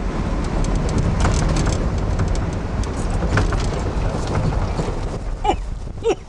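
A vehicle driving on a gravel road, heard from inside the cab: a steady low rumble with scattered ticks and rattles. Near the end, two short calls ring out, each dropping in pitch.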